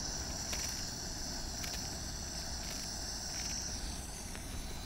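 Steady high-pitched chirring of insects, with a few faint soft clicks.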